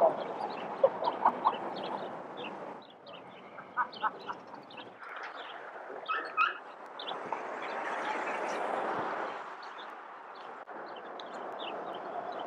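Birds chirping: many short, high calls repeated throughout, with a few lower calls in the middle, over steady open-air background noise.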